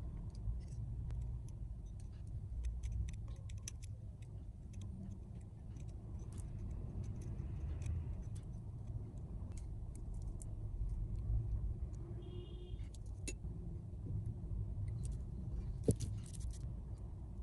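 Soap being touched up by hand: scattered small clicks and taps of a tool and soap being handled over a low steady rumble, with one sharper click near the end.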